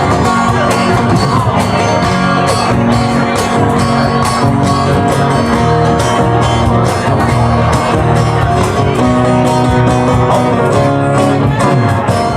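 Band music playing an instrumental passage with no words sung, right after the song's last sung line.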